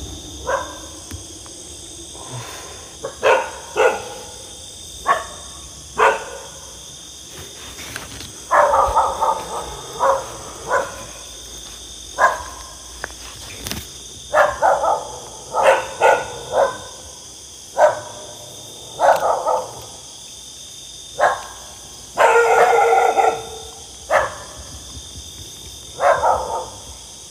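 A dog barking repeatedly at irregular intervals, some single barks and some short quick runs, over a steady high chirring of night insects.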